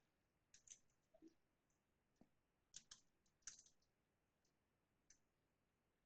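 Near silence with a few faint, separate computer keyboard clicks.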